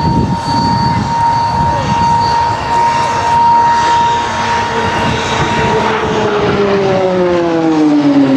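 Aircraft engine sound with a steady high whine, then lower engine notes falling in pitch over the last few seconds as the aircraft flies past.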